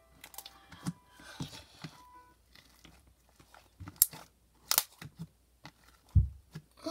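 Hands handling slime and its container: scattered crackles and a couple of sharp clicks, then a dull thump about six seconds in.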